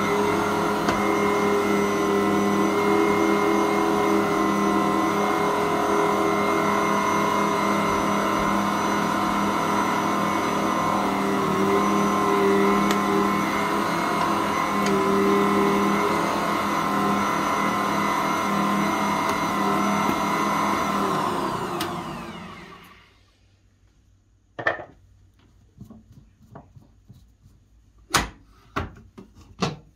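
Ankarsrum 6230 stand mixer running steadily as it kneads bread dough, a motor whine with several fixed pitches. About two-thirds of the way in the mixer is switched off and winds down, its pitch falling as it stops. A few short, sharp knocks follow in the quiet.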